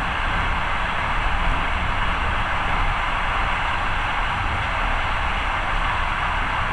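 Steady rushing noise of a moving passenger train, with a low rumble underneath.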